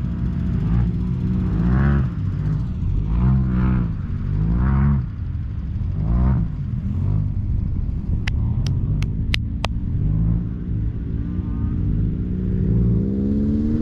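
Volkswagen sand rail's engine running, its pitch rising and falling again and again as it is driven and the throttle is worked unevenly. A quick run of five sharp clicks comes a little past the middle.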